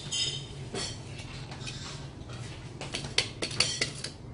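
Pork slices crackling over glowing charcoal on a wire mesh grill, with scattered sharp clicks that gather into a quick run about three seconds in as metal tongs work the grill.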